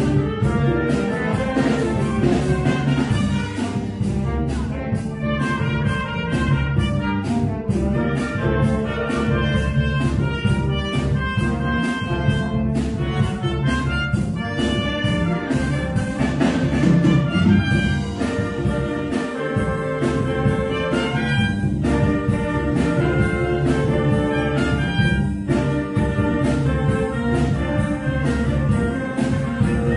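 Live wind band playing, with brass to the fore. A regular percussion beat runs through the first half.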